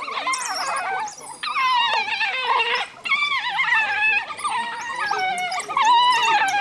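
A pack of African wild dogs gives many overlapping high-pitched whining calls that waver up and down in pitch, with a brief dip about three seconds in.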